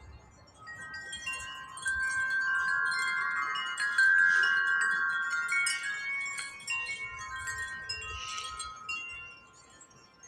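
Wind chimes ringing in a gust of wind, many overlapping tones jangling together. They swell about two seconds in, are loudest about four seconds in, and die down near the end.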